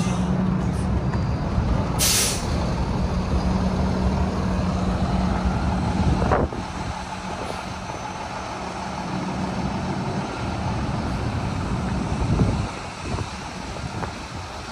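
2012 Peterbilt 320 garbage truck's diesel engine running as the truck pulls away, with a short sharp hiss of air from the air brakes about two seconds in. The engine gets quieter about six seconds in.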